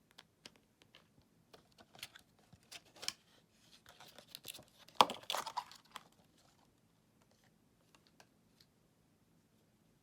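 Hands handling a slime container and its plastic packaging: scattered light taps and clicks, then a short run of crinkling and tearing about four to six seconds in, loudest around five seconds.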